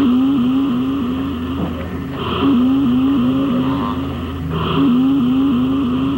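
Electronic science-fiction machine sound effect: a pulsing warble of short rising notes, about two and a half a second, in repeating runs over a low steady hum, with a higher tone swelling every couple of seconds.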